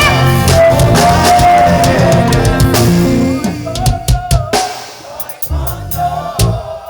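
Live gospel band music: a saxophone holding long notes over a full drum kit. About halfway through the band thins out to scattered drum and cymbal hits under the saxophone's sustained note.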